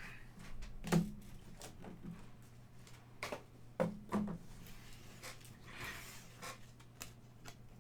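Trading cards and packaging being handled on a table: scattered soft taps, clicks and brief rustles over a low steady hum.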